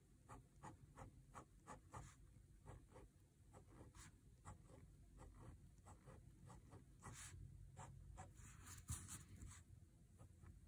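Micron PN fine-tip pen scratching short, quick hatching strokes on a paper tile, about two or three strokes a second, faint; the strokes crowd together into a longer scratchy run about two-thirds of the way through.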